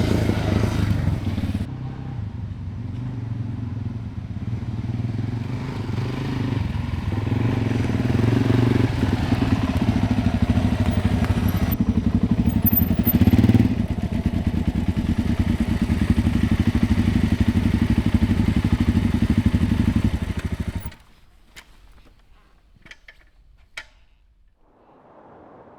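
Single-cylinder Suzuki dual-sport motorcycle engine running, then shut off abruptly near the end, followed by a few faint clicks.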